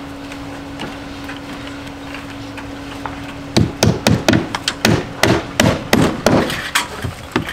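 Hammer driving a nail through wire stucco lath into the wall framing: a quick run of about a dozen sharp blows, starting about three and a half seconds in.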